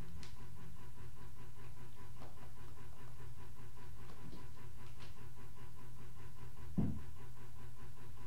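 Steady low hum with a thin steady high tone over it, and one soft thump about seven seconds in.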